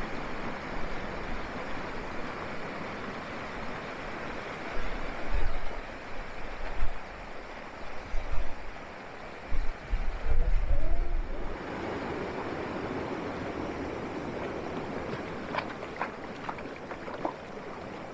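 Outdoor ambience with wind gusting on the microphone for the first ten seconds or so. Then water sloshing as people wade in a shallow creek, with a few sharp clicks and knocks near the end.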